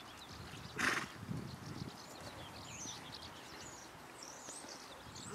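Faint open-air background with small birds chirping intermittently, and one short burst of noise about a second in.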